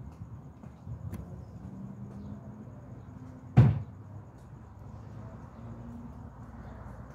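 A steady low background rumble, broken about halfway through by a single sharp knock.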